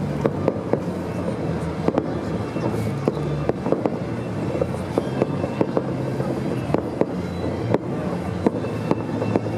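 Fireworks going off: a rapid, irregular run of sharp pops and bangs, several a second, over a steady background din.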